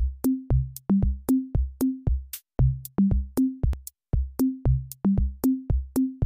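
Background music: a drum-machine beat of low pitched drum hits stepping between a few notes, about three hits a second, each with a sharp click on top.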